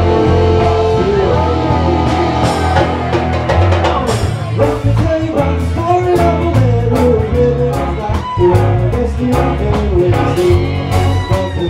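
A live funk-jazz band playing: drum kit, keyboards and electric guitar over a steady bass groove, with a gliding lead melody on top from about a second in.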